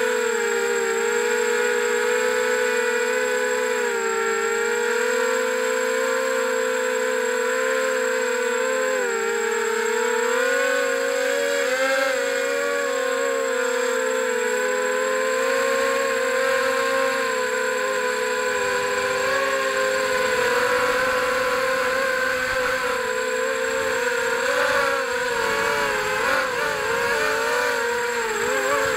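FPV quadcopter's electric motors whining, heard through the onboard camera. The pitch wavers with throttle and swings up and down more quickly over the last ten seconds or so.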